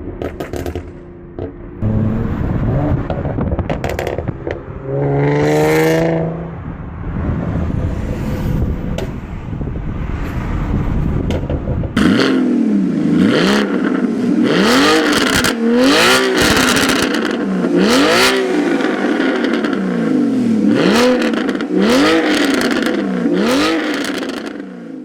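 Performance car exhaust: engine noise with one rev that climbs and falls, then, after a cut about halfway through, the engine blipped repeatedly, about one rev every second and a half. Each rev is followed by crackles and pops from the exhaust as the revs drop.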